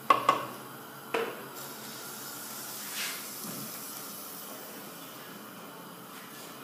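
A stirring utensil knocks against a stainless steel cooking pot: two quick ringing taps right at the start and a third about a second in. Then a steady hiss from the lit gas burner under the pot.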